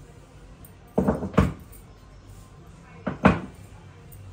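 Two pairs of dull thuds about two seconds apart, each a quick double knock without any ringing.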